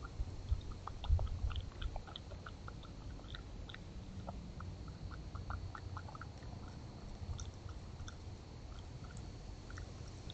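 A raccoon chewing and crunching food, heard as a quick, irregular run of small crisp clicks. A few low thumps come about a second in.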